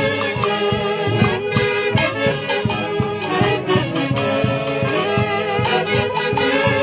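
Live orquesta típica playing dance music: held melody lines from the wind and string instruments over a steady, evenly pulsed beat.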